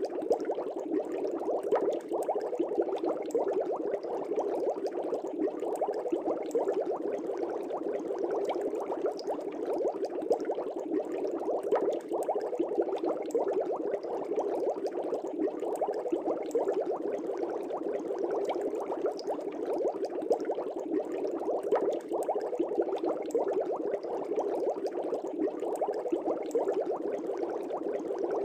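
Air bubbles rising through fish-tank water in a dense, steady bubbling, full of small pops.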